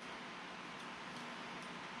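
Low, steady background hiss of a workshop with a faint steady hum, and no distinct tool sounds.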